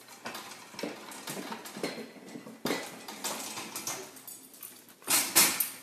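White metal baby gate rattling and clanking as a dog pushes against it and through it, with irregular metallic clicks and a louder clatter near the end.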